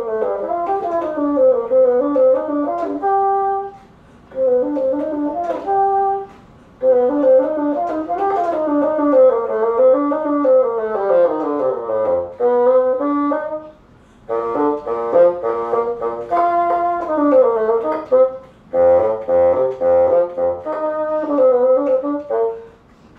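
Solo bassoon playing an unaccompanied melodic passage in phrases separated by brief pauses, with runs of quicker, detached notes in the second half.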